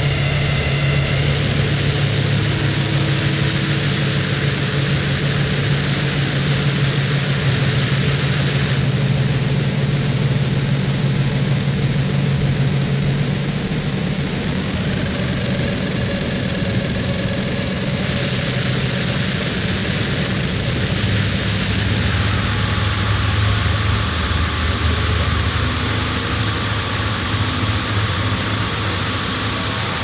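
Harsh noise wall recording: a dense, unbroken wall of distorted noise with hiss across the whole range over a heavy low drone. The drone shifts lower about two-thirds of the way through.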